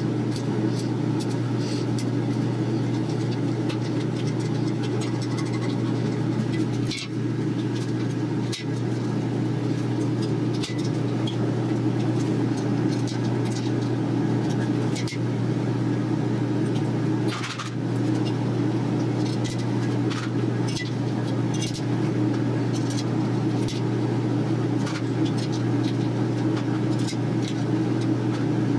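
A steady low mechanical hum runs throughout, with scattered light clicks and taps of hand tools on the steel linear rail and frame as its screws are turned in.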